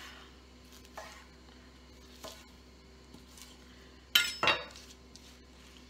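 A steel kitchen knife on a granite countertop: a couple of light chopping knocks, then about four seconds in a sharp metallic clatter with a brief ring as the blade is put down on the stone, and a second knock just after.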